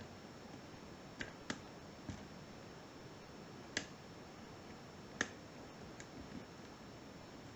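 Small, sharp metallic clicks from a lock pick working the pins of a Sargent 5-pin cylinder lock during single pin picking. About six clicks come at irregular intervals, the loudest about four and five seconds in.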